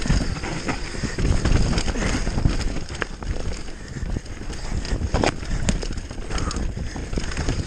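Mountain bike descending a rocky dirt trail at speed: tyres rumbling over stones and roots, the bike rattling, with sharp knocks from hard hits, the clearest about three and five seconds in, over a low rush of wind on the microphone.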